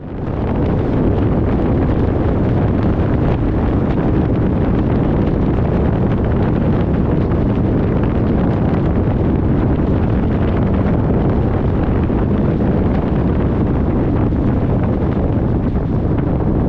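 Steady wind rush and road noise of a vehicle cruising on a sealed highway, with wind buffeting the microphone. It fades in at the start, then holds even throughout.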